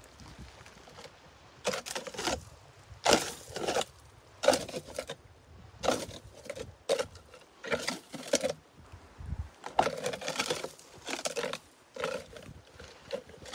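Footsteps pushing through dry, dense willow brush: twigs and stems brushing and snapping against legs and clothing in a walking rhythm, one rustle about every half second to a second.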